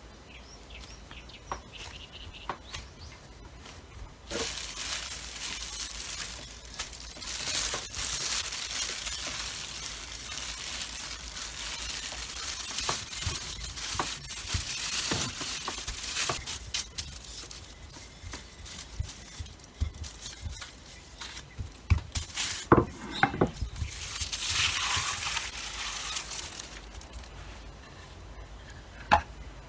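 Plastic cling wrap rustling and crinkling as it is handled and rolled over a slab of dough with a wooden rolling pin, for long stretches in the first half and again briefly near the end. A few sharp knocks on the wooden board a little past the middle are the loudest sounds.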